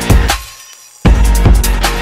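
Background music with a steady drum beat that drops out for about half a second in the middle, then comes back in.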